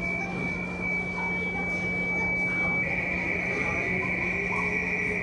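A steady high-pitched tone that becomes louder and buzzier about three seconds in, over a low hum and background murmur.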